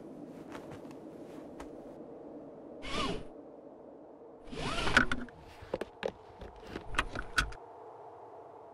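Car seatbelt webbing pulled out of its retractor in two swishing pulls, a short one and then a longer, louder one. Several sharp clicks follow as the belt's metal tongue is worked into the buckle.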